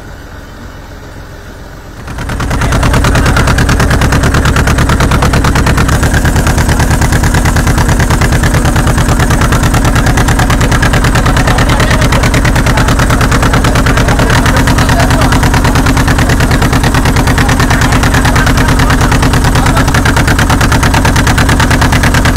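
A boat motor running steadily at close range, very loud, with a fast even throb. It comes in about two seconds in, after a quieter stretch.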